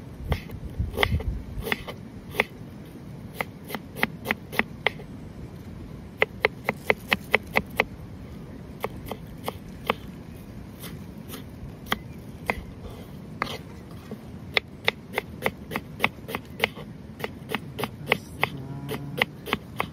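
Knife slicing an onion on a wooden cutting board: quick runs of sharp taps as the blade cuts through and strikes the board, about five a second at the fastest, with short pauses between runs.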